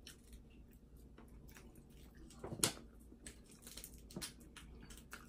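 Faint eating and shell-peeling sounds: scattered small clicks and crackles of fingers working boiled shellfish, with one sharper, louder click about two and a half seconds in.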